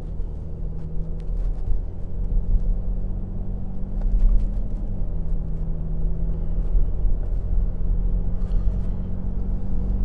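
Car driving, heard from inside the cabin: a steady low rumble of engine and road noise. The engine note drops in pitch about halfway through, then slowly rises again.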